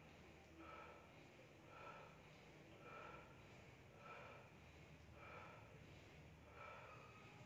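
Faint, rhythmic hard breathing from a man straining through a set of dumbbell presses: a short forceful breath through the nose about once a second.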